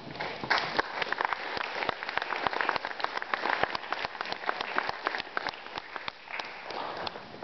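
Audience applauding, many hands clapping in a thick patter that thins out near the end.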